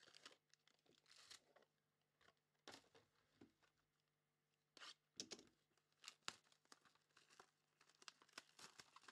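Faint crinkling and tearing of foil trading-card packs being handled and opened, in short scattered crackles with a brief lull near the middle.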